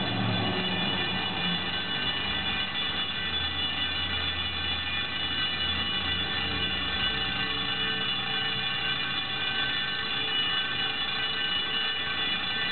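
A building's fire alarm bell ringing continuously, a steady unbroken ring with no pauses. It has been left going off for well over an hour.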